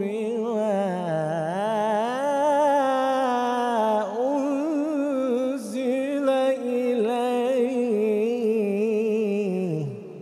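Male Quran reciter chanting in melodic tajweed style, drawing one phrase out in a long, ornamented, wavering line without a break. The pitch falls and the voice fades away just before the end.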